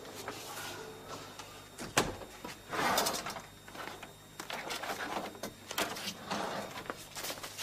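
A door clicking shut about two seconds in, then a short scrape and a run of light rustles and taps as papers and a file on a desk are rifled through.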